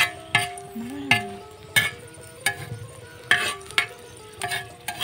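Whole red chilies frying in hot oil in an iron pan, sizzling, while a spatula scrapes and knocks against the pan about seven times as they are stirred.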